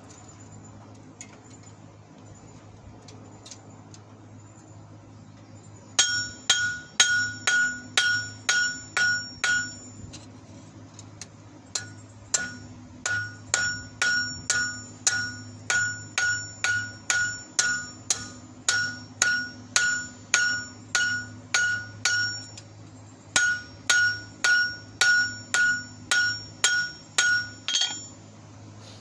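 A hand hammer striking red-hot steel on an anvil, about three blows a second, each blow ringing brightly off the anvil. The open end of an old wrench is being forged out into fork tines. The hammering starts about six seconds in and pauses twice briefly.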